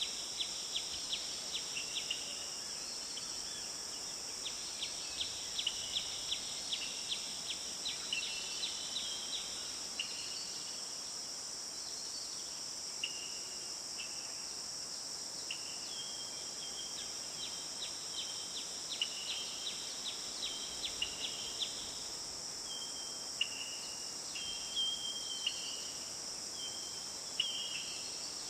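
Natural outdoor ambience: a steady high insect drone, with repeated short chirps, rapid clicking trills and brief whistled notes from insects or birds that come and go.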